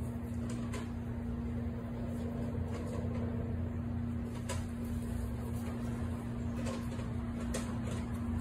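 A steady low mechanical hum with one constant tone through it, and a few faint clicks scattered across it.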